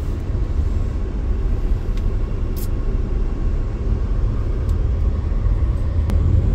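Steady low road and engine rumble heard from inside a moving car, with a few faint ticks.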